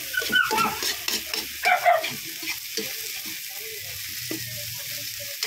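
Metal spatula scraping and tossing chopped green onions and red chilies in a hot oiled wok, over a steady sizzle of frying, with two sharper scrapes about half a second and two seconds in.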